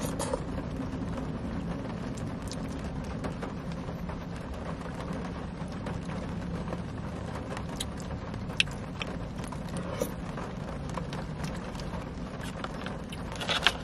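Steady low hum inside a car, with rain falling on it, broken by occasional small clicks of a plastic fork against a paper chili cup.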